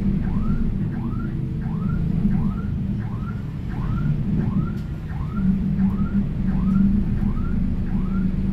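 Steady low rumble of a vehicle under way, with a short rising chirp repeating evenly about twice a second over it.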